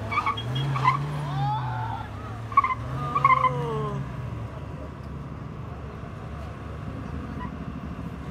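Mahindra Thar SUV engine revving up and down in two swells as it is spun in tight circles on paving, with brief shouts from onlookers. After about four seconds it settles to a quieter, steady run.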